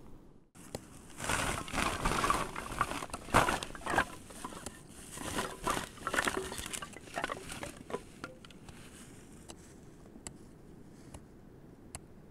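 A woven plastic sack rustles as it is tipped out and a pile of pale blocks clatters onto the ground, a string of knocks lasting about seven seconds. Then only a few faint ticks.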